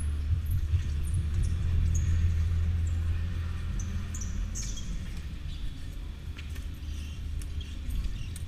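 Electric go-kart rolling slowly over a concrete floor, a low rumble that dies down as the kart slows, with short high-pitched squeaks scattered through it.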